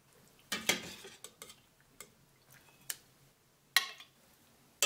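Perforated metal skimmer clinking against a stainless steel pot and a glass dish as boiled chicken pieces are lifted out of the broth and set down: several separate clinks and knocks, the loudest about half a second in.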